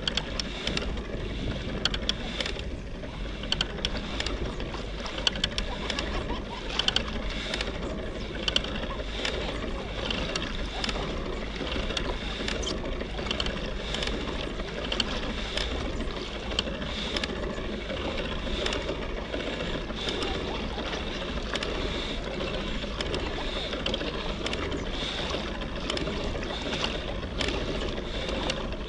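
Kayak on the sea: a steady low rumble and water noise, broken by frequent, irregular small clicks and knocks.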